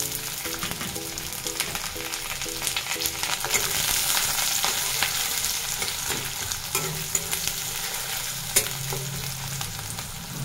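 Chopped onions sizzling in hot oil in a kadhai, stirred with a steel spatula that scrapes and taps against the pan in sharp ticks over the steady hiss.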